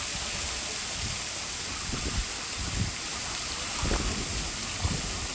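Valley stream water running steadily, with a few short, low splashes.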